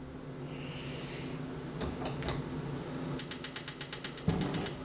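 Gas stove's spark igniter clicking rapidly, about ten clicks a second for a second and a half near the end, as a burner is lit. A couple of single light knocks come before it.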